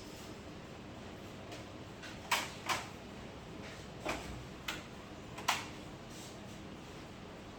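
Five sharp clicks and knocks of hard parts being handled during TV disassembly, a second or so apart in the middle of the stretch, over a faint steady hum.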